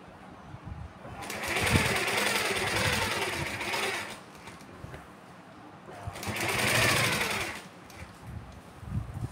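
Sewing machine stitching in two runs, the first about three seconds long and the second about a second and a half, with soft knocks between them.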